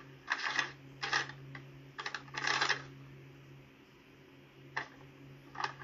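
Sheets of paper rustling as they are handled and shuffled on a desk, in several short bursts, the longest about two and a half seconds in, then two brief rustles near the end.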